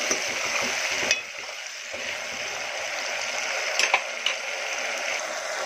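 Onion and ground spice masala sizzling steadily as it fries in oil in a pot, being sautéed (bhuna) until the masala is cooked through, with a few short knocks about a second in and near four seconds.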